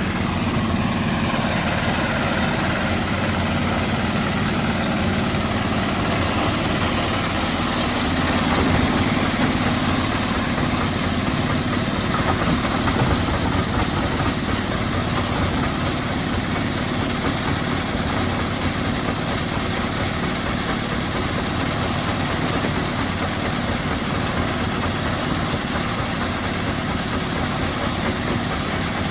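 Heavy machinery at a stone crushing plant running steadily, an engine idling with a constant rumble and a slight swell about eight seconds in.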